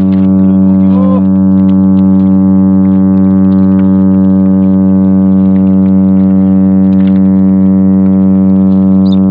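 A loud, steady, low buzzing hum held at one unchanging pitch, rich in overtones.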